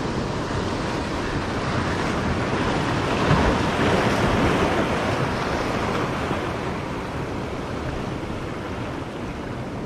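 Sea surf washing in over shoreline rocks, a steady rush of water that swells as a wave breaks and foams against the rocks about three to five seconds in, then eases off.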